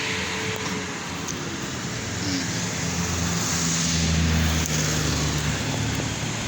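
A steady low motor hum, like a vehicle engine, over outdoor noise, swelling louder from about three to five and a half seconds in.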